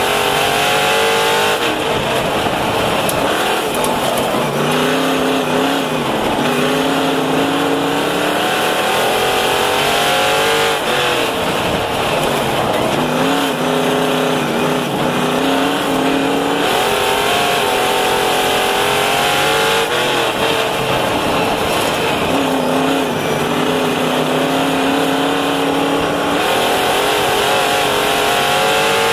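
Dirt modified race car's 358 small-block V8 at racing speed, heard from inside the cockpit. It revs up and falls off over and over, roughly every five seconds, as it accelerates and lifts around the oval.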